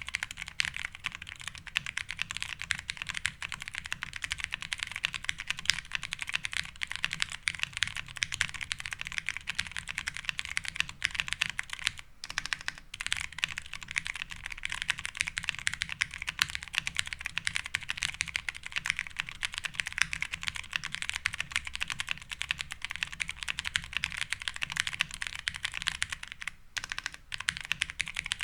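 Continuous fast typing on a mechanical keyboard with stock, unlubricated vintage Cherry MX Brown tactile switches and Cherry POM keycaps: a steady stream of key clacks, with two short pauses, about twelve seconds in and again near the end.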